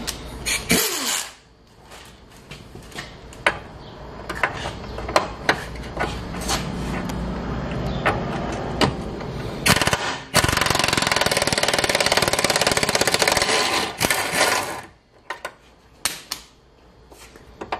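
Impact wrench hammering on a lower control arm bolt to break it loose. It runs quieter with scattered metal clicks at first, then in one loud continuous burst of about four seconds that stops abruptly.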